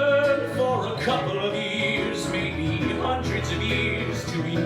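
Live music: a man singing a slow song over guitar accompaniment.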